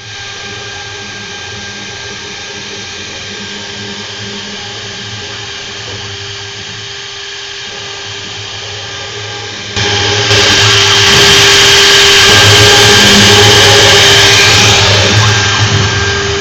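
CNC wood lathe running with a steady motor whine; about ten seconds in, a much louder hissing machine noise starts suddenly and holds.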